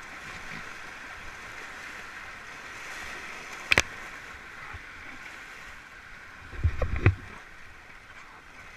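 Rushing whitewater of a small, rocky mountain stream heard from a raft running the rapid. A sharp knock comes a little before halfway through, and a short cluster of heavy low thumps about two-thirds of the way in.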